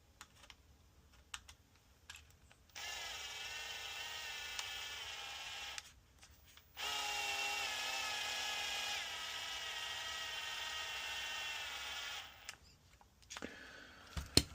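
Cordless power screwdriver or drill driving a screw, in two steady runs of motor whine, the second longer, its pitch dropping a little partway through as it loads up.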